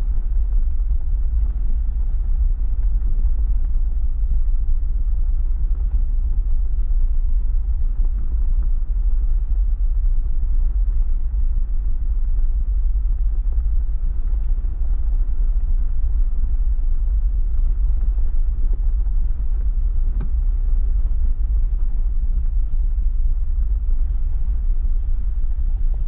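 Jeep Wrangler JL Rubicon driving, heard as a steady low rumble of engine and road noise.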